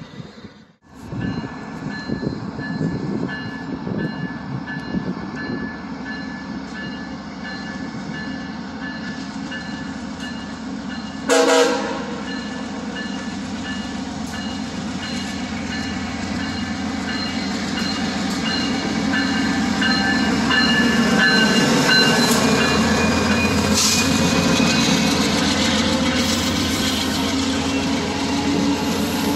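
Via Rail passenger train running past, a steady rumble of engine and wheels that grows louder over the second half. A short horn blast sounds about eleven seconds in.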